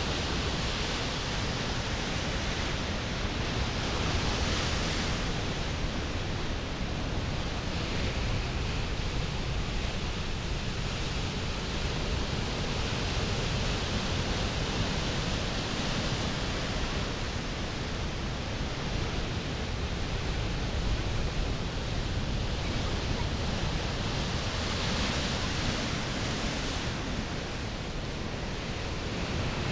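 Steady rushing noise with no distinct events, swelling slightly every several seconds.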